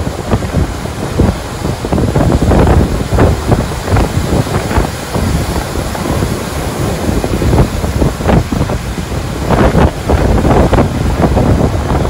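Heavy surf from a typhoon swell: big waves breaking and crashing over a harbour breakwater and pier, with a constant loud roar of churning whitewater. Strong wind buffets the microphone in gusts throughout.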